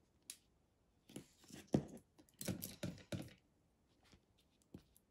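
Watercolour brush stroking across textured cotton watercolour paper: a string of short, faint, scratchy strokes, bunched together in the middle.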